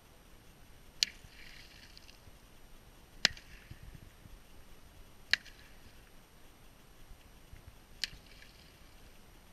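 Chunks of ice thrown onto a thin sheet of lake ice: four sharp cracks about two seconds apart, each followed by a brief high tinkling as the pieces skitter across the ice.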